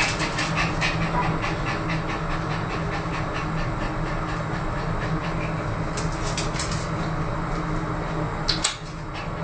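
Small dog (Pomeranian) panting quickly and excitedly, about four or five breaths a second, over a steady low hum, with a sharp noise near the end.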